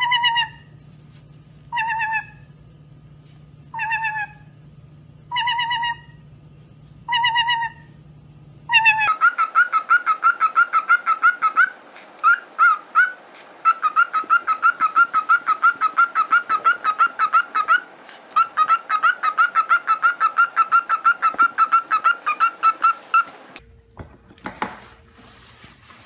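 A white-bellied caique giving short, shrill calls that fall in pitch, one about every two seconds. Then a cockatiel whistles a fast, warbling song of rapid repeated notes for about fourteen seconds, with a few short breaks.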